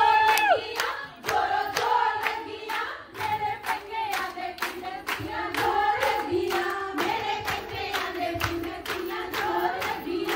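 Women singing Punjabi boliyan for giddha, with steady rhythmic hand clapping, about three claps a second.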